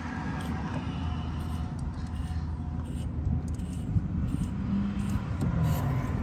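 Brass wire brush on a rod being twisted by hand inside an engine's spark plug tube, scraping lightly against the metal walls and threads to clear out grime. A steady low rumble runs underneath.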